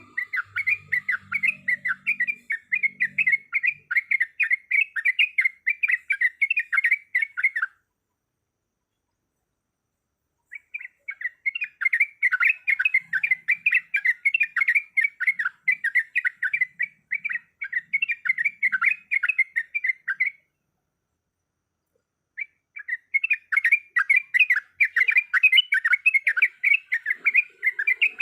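Sooty-headed bulbul (trucuk) giving a rapid, chattering song of quick repeated notes in three long bouts, with silent gaps of a couple of seconds between them.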